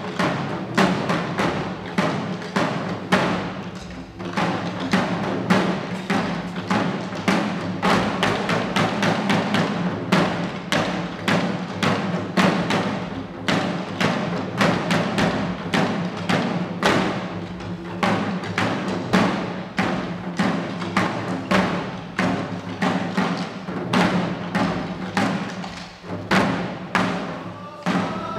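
Shishi-odori deer dancers' chest-worn taiko drums, beaten together with sticks in a quick, even rhythm of several strokes a second.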